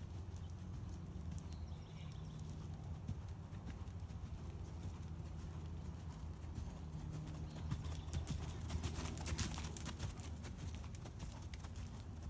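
Hoofbeats of an Oldenburg mare moving around a sand arena, a soft rhythmic thudding of hooves on the footing over a steady low rumble. The hoof strikes are sharpest and loudest about eight to ten seconds in.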